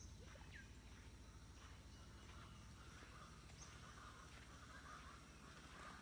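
Faint rainforest ambience: scattered distant bird calls and chirps over a steady, high insect whine, with a patchy chorus of calls growing denser about halfway through and a low rumble underneath.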